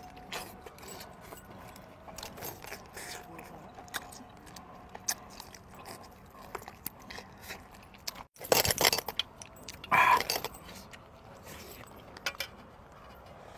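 People eating: scattered small clicks, clinks and scrapes of handling food and dishes, with biting and chewing. Two short louder bursts come about two-thirds of the way in.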